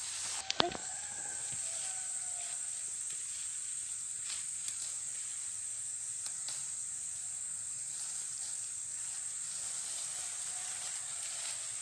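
Steady high-pitched hiss of insects in tropical undergrowth, with scattered snaps and rustles of fern stalks being picked by hand, the sharpest snap about half a second in.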